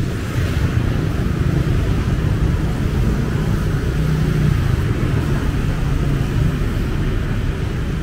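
Steady low rumble of passing street traffic, swelling slightly about halfway through.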